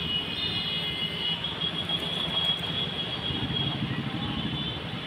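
Road traffic heard from a moving two-wheeler: a steady hum of engines and tyres, with a thin, high, steady whine over it.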